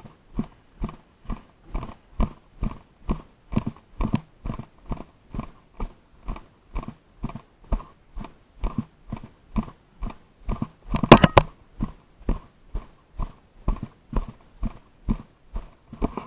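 Footsteps of a player walking briskly, picked up as even thumps a bit over two a second, with a short clatter of sharp clicks about eleven seconds in.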